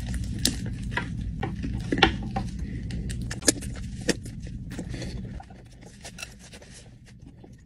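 Close-up eating sounds: wet, crackly biting and chewing of a sauce-soaked wrap, with scattered sharp clicks, over a steady low hum that stops about five seconds in.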